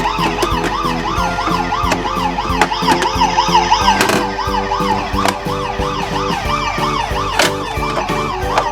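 Several small battery-powered toy ambulances sounding electronic sirens at once: a fast warbling wail over lower alternating two-tone beeps, with sharp plastic clicks now and then.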